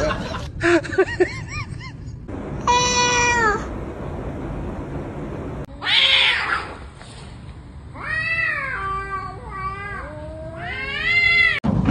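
Domestic cats meowing: a few short wavering calls, then a clear meow, a short noisy burst about six seconds in, and two long drawn-out meows that rise and fall in pitch near the end, with abrupt cuts between them.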